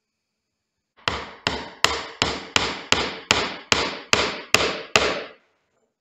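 Hand hammer striking a small steel pin on a wooden workbench: eleven quick, even blows, about three a second, each with a short ringing decay.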